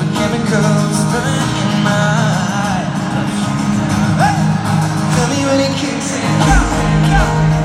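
Live pop music: a male voice singing over guitar, with a deep bass layer coming in about six and a half seconds in.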